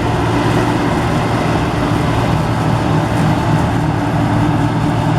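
Heavy harvest machinery running steadily, most likely a combine harvester working a wheat field: an even engine hum under a constant mechanical noise that does not change.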